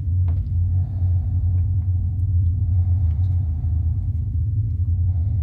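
Deep, steady low rumble, a horror-film sound-design drone, with a few faint clicks over it.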